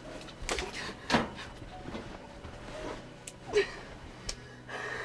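A woman in labour breathing hard through pain, with a brief groan about three and a half seconds in. A few sharp knocks and rustles of movement on the bed come in between.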